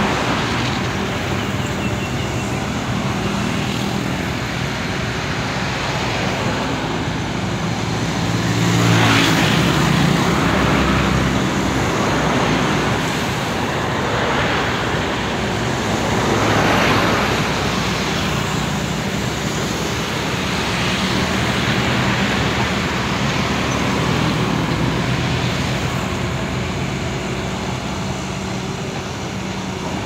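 Caterpillar 320D hydraulic excavator's six-cylinder diesel engine running steadily while the machine swings and loads spoil into a dump truck, with two louder swells about nine and seventeen seconds in.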